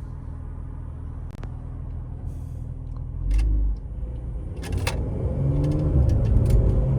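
Turbocharged car engine idling steadily, then a loud low burst a little over three seconds in as the car launches from a stop. The engine note climbs in pitch and loudness under hard acceleration, with scattered sharp clicks.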